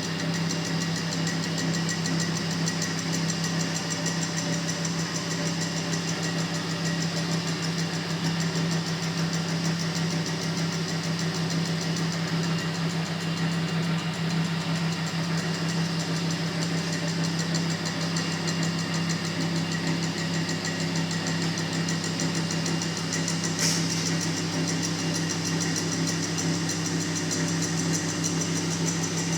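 Honda 100cc single-cylinder four-stroke motorbike engine running steadily at a constant, unchanging speed. There is one brief click about three-quarters of the way through.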